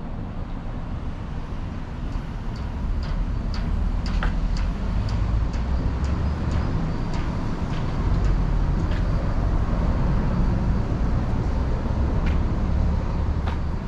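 Street ambience: a steady low rumble of road traffic that grows louder after about two seconds, with light sharp ticks about twice a second through the middle.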